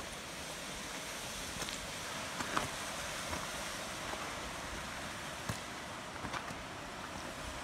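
Hiking footsteps on a rocky scree path: boots crunch and knock on loose stones at irregular moments, over a steady hiss.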